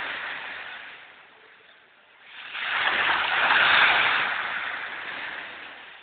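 Small waves breaking and washing up a pebbly shore: one surge fades out, and a new wave rushes in about two and a half seconds in, peaks, then drains away.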